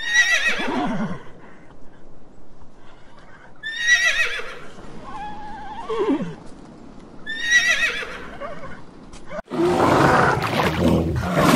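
Horses whinnying: three high, quavering neighs that fall in pitch, a few seconds apart. Near the end this gives way to a louder, rougher, lower sound.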